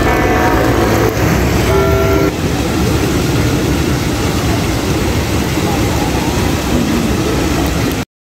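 Outdoor city ambience: steady traffic noise, with a few short held tones in the first two seconds. The sound changes at a cut about two seconds in and stops abruptly near the end.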